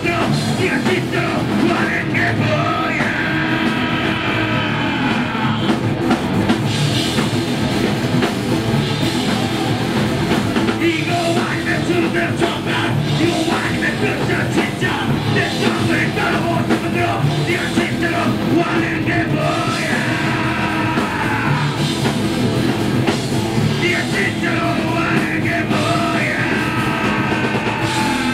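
A live heavy rock band plays loud, with electric guitar, bass guitar and a drum kit. A singer's voice comes in over the band at several points.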